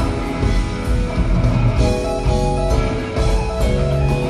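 A live jazz-rock band playing an instrumental jam: electric guitar, bass, drums and percussion, with held melodic notes over a dense low end.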